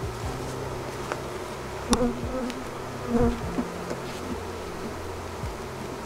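Honeybees buzzing around an open hive, a steady hum with individual bees flying close past, their pitch dropping as they go by. A sharp tap just before two seconds in, and a louder close buzz a little after three seconds.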